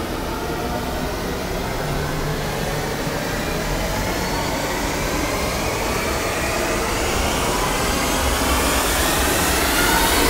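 A rushing, jet-like whoosh that slowly swells louder, with faint tones sliding upward: a building sound effect.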